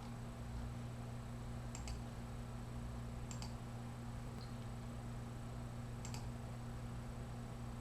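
Laptop clicks: about four separate short, sharp clicks a second or two apart, most of them quick double clicks, over a steady low hum.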